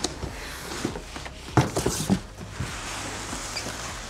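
Cardboard boxes being handled: a boxed PC case slid out of its cardboard shipping box, with scraping and a few knocks, loudest about one and a half seconds in.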